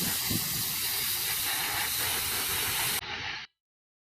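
A loud, steady hiss of broad noise with a low rumble beneath. It dulls about three seconds in and cuts off abruptly half a second later into silence.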